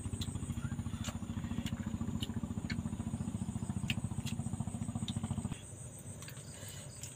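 A small engine running with a fast, even low pulse, then cutting off suddenly about five and a half seconds in.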